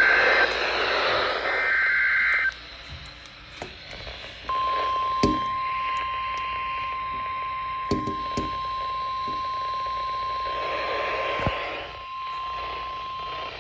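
Emergency Alert System broadcast over NOAA Weather Radio. First come two short bursts of SAME digital header data, a harsh two-tone warble. After a couple of seconds of static comes the steady single-pitch 1050 Hz weather radio alert tone, held for about nine seconds. Radio crackle and clicks run underneath.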